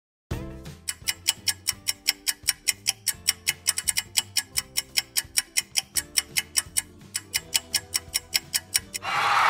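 Spin-the-wheel app ticking as the wheel turns past its segments, about five quick clicks a second, over background music. Near the end a loud burst of hissing noise cuts in and is the loudest sound.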